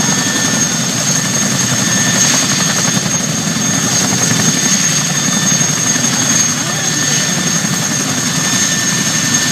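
Boeing CH-47 Chinook tandem-rotor helicopter running steadily: a loud, even rotor and engine rumble with a steady high-pitched turbine whine over it.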